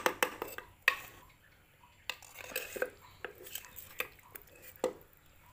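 A metal spoon and a wooden pestle clinking, knocking and scraping in a mortar as palm sugar is scraped off the spoon and worked into the dressing: a string of sharp clinks, several close together at the start and a loud one near the end.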